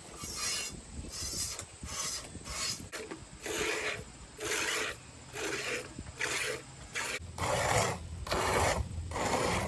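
A goat being milked by hand, with streams of milk squirting into a container in a steady rhythm of about one and a half hissing squirts a second. The squirts grow louder toward the end.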